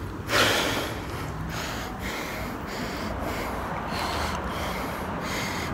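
A man breathing hard close to the phone microphone, winded after a set of push-ups, with one louder breath just after the start.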